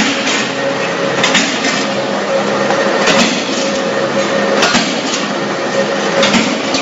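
YBJ 100 CNC plate punching machine running with a steady hum and whine, punching the metal plate with a sharp clack about every one and a half seconds, five strokes in all.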